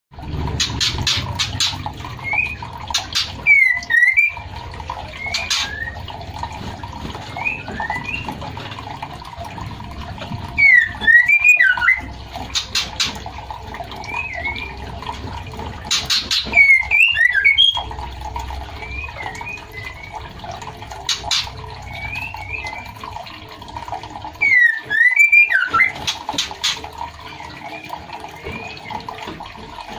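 Female white-rumped shama calling: short whistled chirps, and every several seconds a louder burst of rapid up-and-down notes mixed with sharp clicks. A steady hiss runs underneath.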